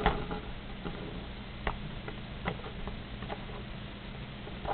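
A few light, isolated clicks and taps of a plastic game controller being handled on a wooden table, about one a second, with a louder click at the very end, over a steady low hum.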